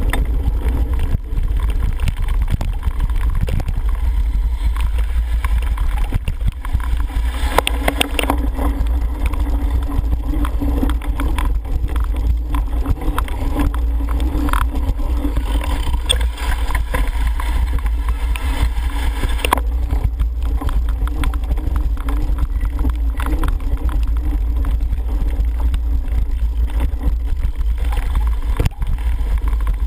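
Wind rushing over a helmet camera's microphone and the rough rolling rumble of a cyclocross bike riding over grass and dirt, with frequent short rattles and knocks from the bike over bumpy ground.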